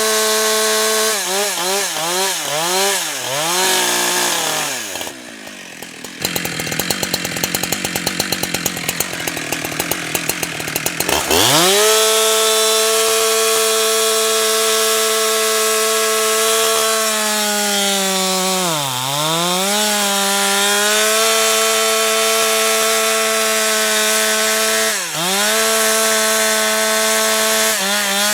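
Husqvarna 365 two-stroke chainsaw blipped up and down a few times, then dropped to a ticking idle for about five seconds. It revs back up and is held high for most of the rest, dipping in pitch twice before falling away near the end.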